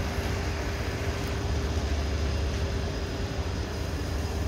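Freight cars of a CSX manifest train rolling past on the rails: a steady low rumble of steel wheels on track, with a faint steady hum running through it.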